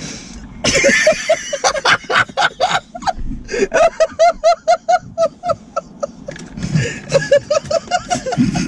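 People laughing hard: breathy, wheezing laughter at first, then two long runs of quick, rhythmic ha-ha-ha.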